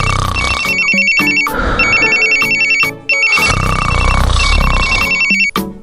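Electronic ringing trill like a phone ringtone: bursts of rapid high beeps, each about a second long, with short breaks between them.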